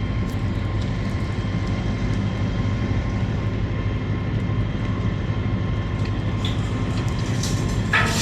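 Volvo EC750 excavator's diesel engine running steadily under work, with a low drone and a steady high whine above it. Near the end a louder, rougher rush of noise sets in.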